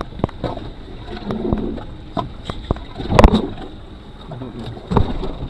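Wind and water noise aboard a small boat drifting at sea, with scattered knocks and a loud thump about three seconds in, and another near five seconds.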